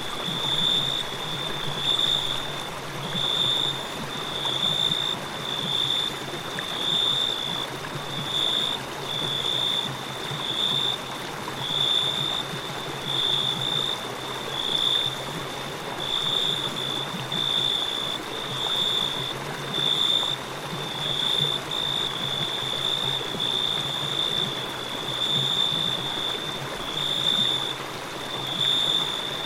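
River water flowing steadily, with crickets chirping over it in a high, even pulse of roughly one chirp a second.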